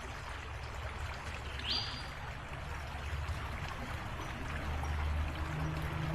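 Creek water flowing and splashing steadily over its bed, with a single short rising bird chirp about two seconds in. A low steady hum comes in near the end.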